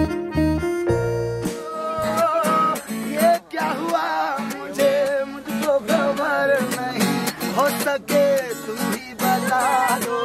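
Acoustic guitar being strummed with a small group singing along. The first second and a half is a steady held chord, then the voices come in with wavering sung lines over the strumming.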